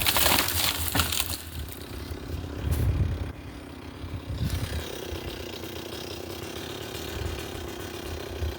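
A box elder tree coming down: wood cracking and branches crashing, with heavy low thuds a few seconds in. From about halfway through, a chainsaw idles faintly.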